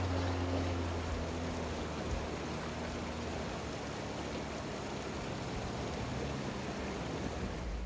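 River water rushing steadily over a shallow riffle. The low hum of an SUV's engine fades out over the first second or two.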